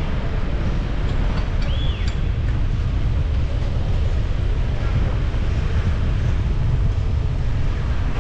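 Steady low rumble of a car driving on an unpaved road, with wind buffeting the microphone. A short high chirp sounds about two seconds in.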